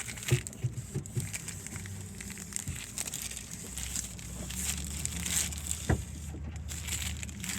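Packing material crinkling and rustling as stainless steel tubing is unwrapped from its shipping tube, with a few sharp taps among it.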